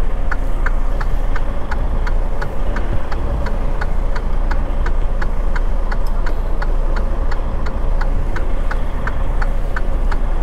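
Semi tractor's diesel engine running at low revs, heard from the cab, with a flasher relay clicking steadily at about three clicks a second.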